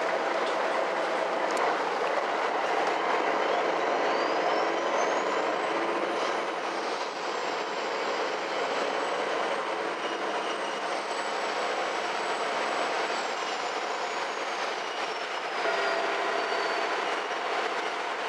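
Interior sound of a MAN NG 313 articulated city bus on the move, its diesel engine and running gear a steady drone. A high whine rises about three seconds in, holds, then falls away near the end.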